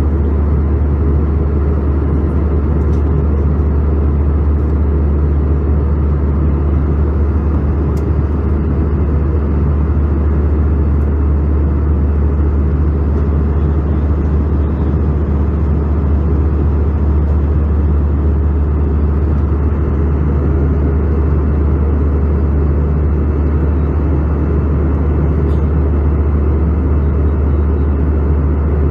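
Steady cabin noise inside an Airbus A320-200 in flight: a deep, even rumble of engines and rushing air, heard from a window seat over the wing.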